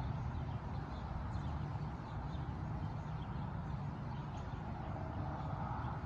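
Outdoor ambience: a steady low rumble with faint, scattered bird chirps.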